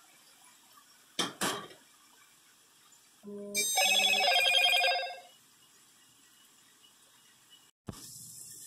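Faint sizzle of onions frying on an electric griddle, two sharp clicks about a second in, then an electronic ringing tone: two short low beeps followed by about two seconds of loud, pulsing, many-toned ringing, like a phone's ringtone. The sound cuts out abruptly near the end where the recording was paused.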